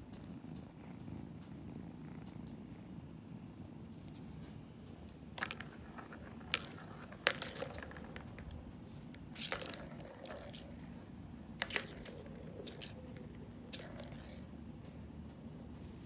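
Kittens purring, a steady low rumble. From about five seconds in, several sharp plastic clacks and rattles come from the balls of a tower track cat toy being batted.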